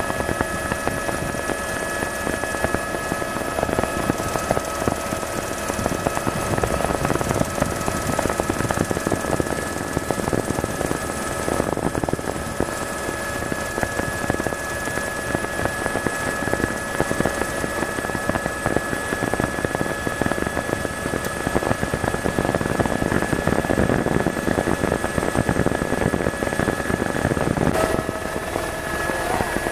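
Tour helicopter running steadily: its engine whine holds over the rapid chopping beat of the rotor.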